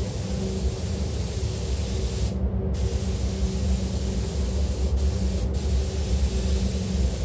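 Compressed-air spray gun hissing as glass coating is sprayed onto a car's bodywork. The hiss stops for about half a second a little over two seconds in and cuts out twice, very briefly, around five seconds, over the steady low drone of a spray booth's ventilation.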